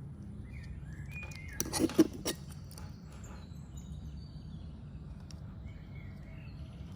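A quick cluster of sharp clicks about two seconds in, a Victorinox Swiss Champ's tools snapping on their springs as they are opened or closed, over birds chirping and a steady low hum.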